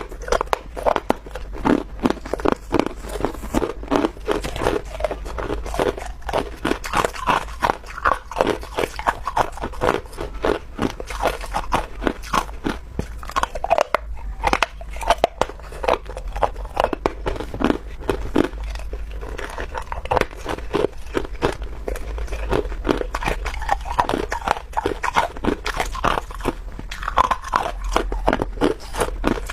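A person biting and chewing clear ice, with a continuous run of sharp crunches coming several a second.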